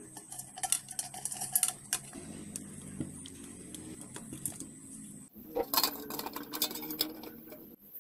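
Light clicks, taps and clatter of rice cooker parts being handled: its wires and plastic outer body, and the metal thermostat, knocking against each other and the table as the cooker is put back together. The knocks come in scattered clusters, thickest about a second in and again in the last few seconds.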